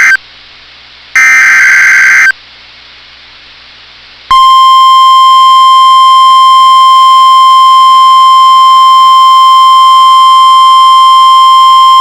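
Emergency Alert System data bursts on NOAA Weather Radio, harsh electronic screeches: one ends just at the start and another lasts about a second. About four seconds in, the steady single-pitch weather-radio warning alarm tone begins. Together they are the coded header and alert tone that set off weather-radio receivers ahead of a new warning.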